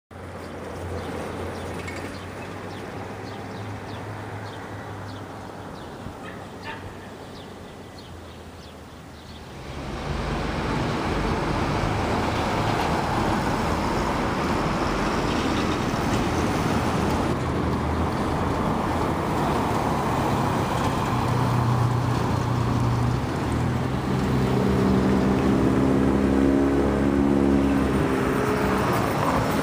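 Traffic noise from cars on a city street: engine and road noise, quieter at first, then louder and steadier from about ten seconds in, with a passing engine's steady hum near the end.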